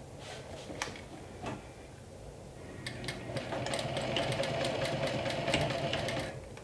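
A few light handling clicks, then from about three seconds in a Juki DU-1181N walking-foot sewing machine runs for about three seconds, top-stitching through a fabric strap connector, and stops just before the end.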